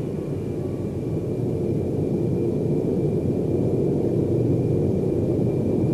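Cartoon spaceship engine sound effect: a steady low rumble with a faint thin high whine above it, slowly growing louder.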